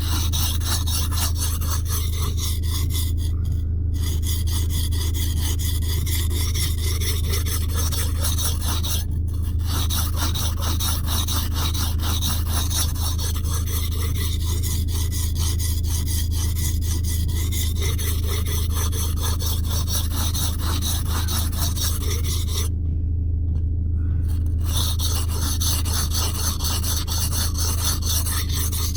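Steel blade of a Böker knife being ground back and forth on a rough whetstone in quick repeated rasping strokes, taking metal off to reshape the chipped edge. Brief pauses come about 4 s in, about 9 s in, and for a longer moment around 23 s. A steady low hum runs underneath.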